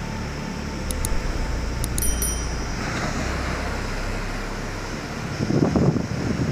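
Wind buffeting the microphone over the steady rush of rough sea surf, with heavy gusts near the end.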